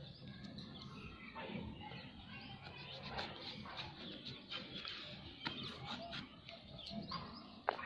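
A scissor blade scraping and slitting the paper seal sticker on a cardboard smartphone box, with faint rustling and small clicks as the box is handled. A sharper click comes near the end.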